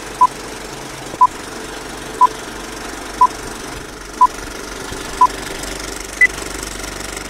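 Vintage film countdown leader sound effect: a film projector runs with a steady clatter and crackle while a short beep sounds once a second, six times at the same pitch, then a seventh, higher beep.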